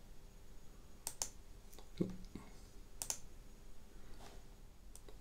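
Computer mouse clicking a few times, mostly in quick pairs, with a duller thump about two seconds in.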